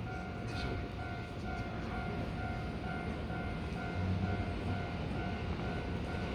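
Japanese level-crossing warning bell ringing over and over in an even rhythm of single-pitched dings, while Keihan electric trains rumble past on the rails. The rumble grows louder about four seconds in.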